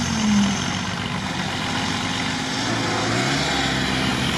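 Unimog truck engine running at low speed in deep swamp, its pitch rising about three seconds in as it is revved.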